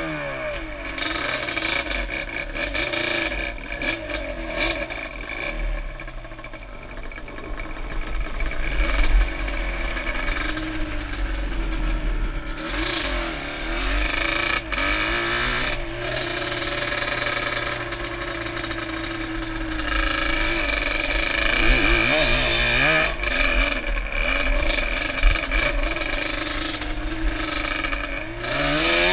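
Yamaha Banshee quad's two-stroke twin engine revving up and down again and again while riding over dirt, with wind noise on the helmet microphone. The revs climb highest and hold for a few seconds past the middle.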